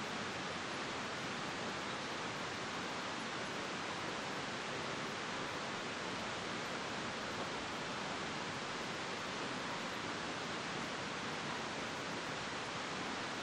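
A steady, unchanging hiss, even across the range, with no distinct events in it.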